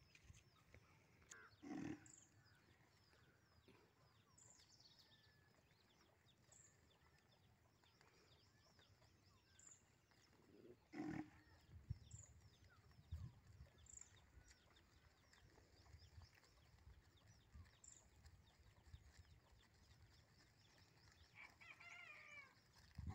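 Quiet rural ambience with faint, scattered bird chirps, two short, louder animal calls about two and eleven seconds in, and a flurry of chirps near the end.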